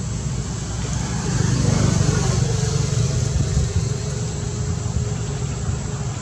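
Low rumble of a vehicle engine, swelling between about one and a half and three and a half seconds in.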